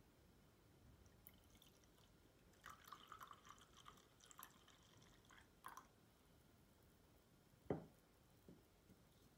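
Coffee poured from a glass server into a ceramic mug: a faint trickle and drips. About three quarters of the way through comes a single knock as the glass server is set back down on the wooden board.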